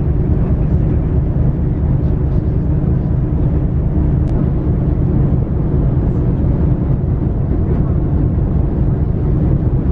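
Icebreaker ship's engine running steadily, a low, even hum.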